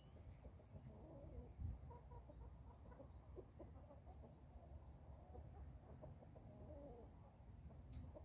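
Hens clucking faintly: many short, soft calls throughout, over a low rumble.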